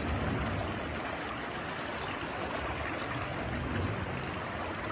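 Mountain stream water running steadily over rocks.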